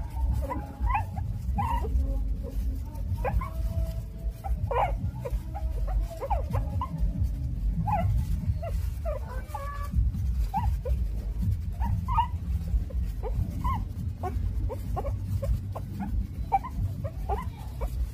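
Nursing puppies whimpering and squeaking as they suckle: many short, high squeaks scattered throughout, over a steady low rumble.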